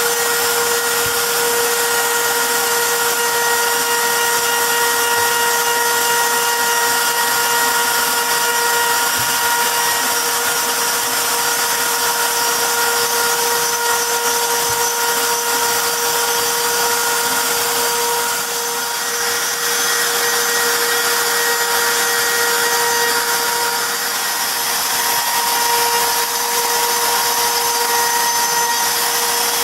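CNC router spindle running steadily with a high, even whine while its bit engraves a wooden plaque, the cut adding a hissing rasp; the sound dips slightly twice in the latter part.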